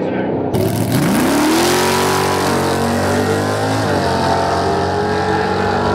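Drag cars' engines accelerating hard down the strip. The pitch climbs steeply about a second in, then holds high, with a brief drop near four seconds in, like a gear change.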